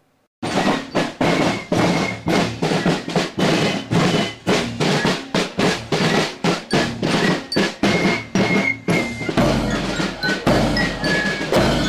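Marching drum corps playing a march beat on snare drums and a bass drum with a cymbal mounted on it, steady strokes about three to four a second. Starts about half a second in, and the bass drum booms come in heavier near the end.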